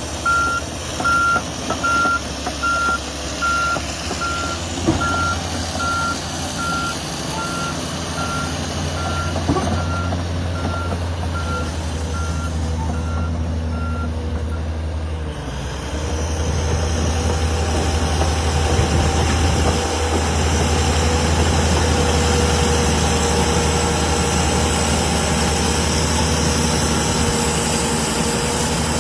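Backhoe loader's diesel engine running, its reversing alarm beeping at an even pace for about the first half; then the beeping stops and the engine runs louder. A couple of knocks sound in the first half.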